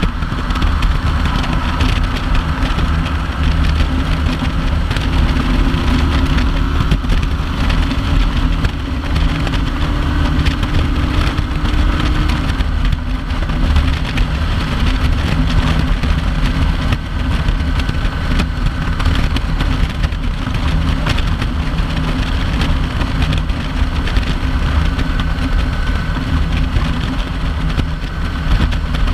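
Kawasaki Vulcan 900 LT cruiser's V-twin running steadily at highway speed, with loud wind rush over the microphone.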